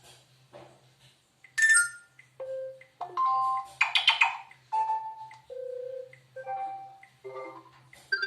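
A preloaded Sony Xperia 10 ringtone playing from the phone's speaker. It is a melody of short electronic tones at changing pitches, starting about a second and a half in.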